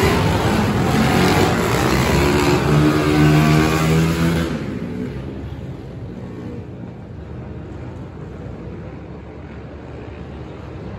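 Dirt bike engine revving as the bike rides past on a dirt track, its pitch rising and falling. About four and a half seconds in it drops away, leaving a quieter steady background noise.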